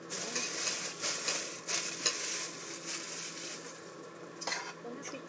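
Food sizzling and crackling as it fries in a pan, starting abruptly.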